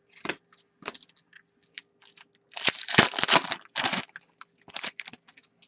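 Trading cards being handled and flipped through by hand: a run of light clicks and short rustles, with a longer sliding rustle about three seconds in. A faint steady hum lies underneath.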